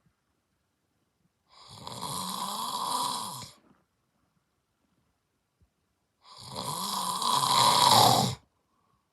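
A man snoring in his sleep: two long snores about five seconds apart, each growing louder before it stops.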